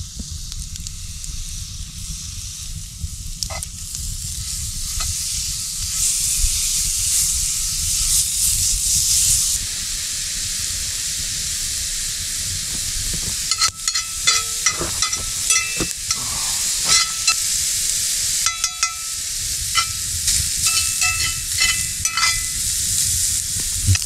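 Ground meat sizzling steadily in a cast-iron skillet over a campfire. From about halfway through, a metal utensil scrapes and clicks against the pan as the meat is broken up and stirred.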